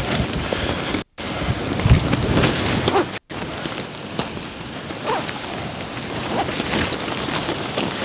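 Gusty wind buffeting the microphone and the tent's nylon fly sheet, with faint rustles and clicks from the tent being handled. The sound cuts out completely twice for a moment, about one and three seconds in.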